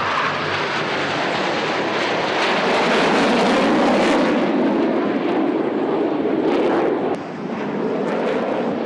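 Jet engine noise from a formation of Republic of Korea Air Force Black Eagles KAI T-50B jets flying overhead, each powered by a single turbofan. The roar swells to its loudest about three to four seconds in, drops suddenly a little after seven seconds, then carries on.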